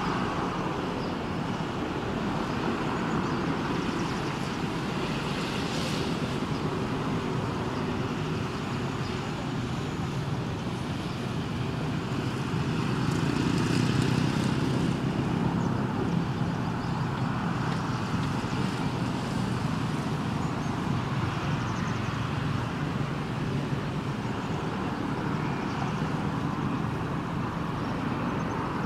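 Steady engine noise from an Airbus A321 taxiing at low power, mixed with the airport fire trucks running their water cannons; it swells a little about halfway through.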